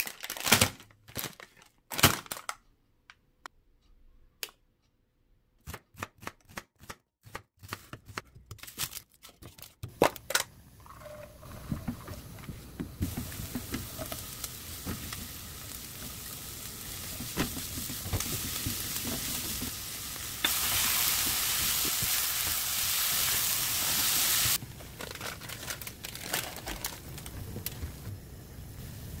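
Scattered sharp knocks and clicks, then chopped onion and green onion sizzling in oil in a wok. The steady hiss turns louder for about four seconds in the middle, then drops back suddenly.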